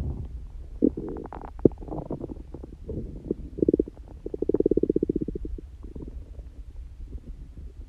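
A person's stomach growling: a string of irregular gurgles and squelches, with a fast rattling run of pulses about four to five seconds in that is the loudest part. The owner says the growling comes without hunger or stomach pain.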